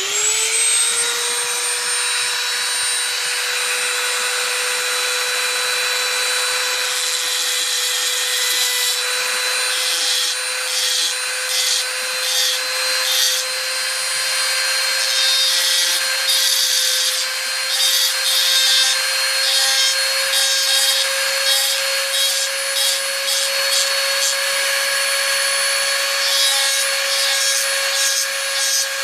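Small high-speed rotary tool spinning up at the start and then running with a steady high-pitched whine. From about seven seconds in, repeated short grinding bursts are heard as its bit cuts into a die-cast toy truck's fender.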